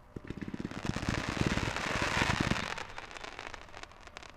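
Dominator 192 Proof 500-gram firework cake being lit: a rapid, sputtering crackle over a hiss. It swells about two seconds in, then dies down to a faint sizzle.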